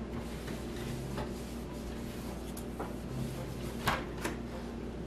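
Cloth rubbing over a wooden kitchen cabinet door, with two sharp knocks against the wood about four seconds in, half a second apart.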